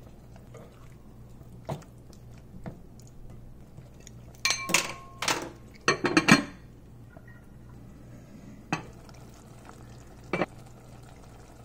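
Glass lid clinking against a ceramic casserole dish: two quick clusters of loud, ringing clinks about halfway through, with a few lighter knocks before and after.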